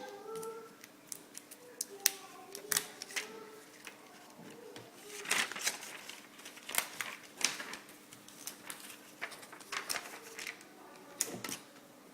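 Irregular small clicks and light rattles of a screwdriver, screws and thin metal mounting brackets being worked off a laptop LCD panel.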